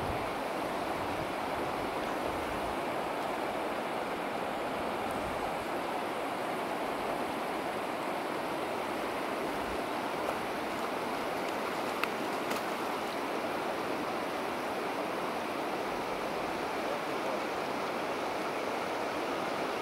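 Steady rush of running water, with one faint click about twelve seconds in.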